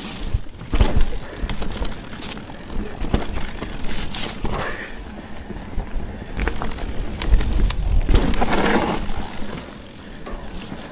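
Electric mountain bike ridden down a singletrack trail: tyres rolling over dirt, with frequent sharp knocks and rattles from the bike over the rough ground and a longer rush of noise about eight seconds in.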